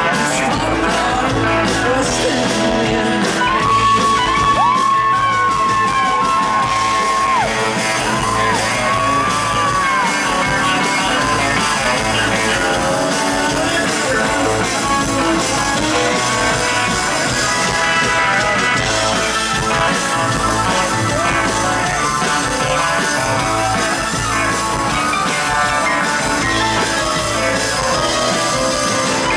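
Live country band playing a song: guitars and drums over a steady beat, with singing and a long held note about four seconds in.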